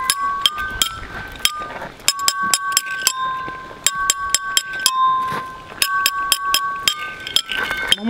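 Stone bars of a lithophone (stone xylophone) struck with a metal rod: a quick, uneven run of clinking strikes. Each strike rings on as a clear, bell-like note, and the pitch changes as different bars are hit.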